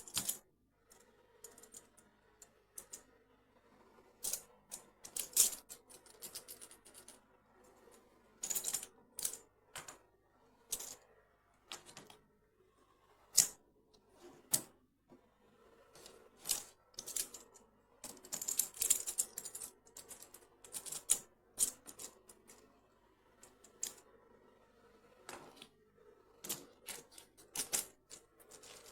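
Plastic magnetic building cubes clicking and clacking as they are handled, snapped together and set down, in irregular single clicks and quick clusters. Each cube is a hollow plastic box with small magnetic balls inside.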